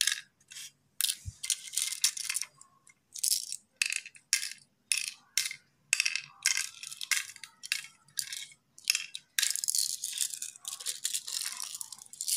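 Cowrie shells dropped into the hollows of a wooden pallanguzhi board as they are sown pit by pit, clicking and rattling in short quick bursts about twice a second, with a longer run of rattling near the end.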